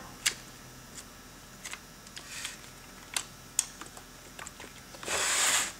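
Scattered small clicks and taps of hands fitting a fuel line and plastic carburetor and linkage parts on a Husqvarna 51 chainsaw, about half a dozen spread irregularly. About five seconds in comes a short hiss lasting about half a second.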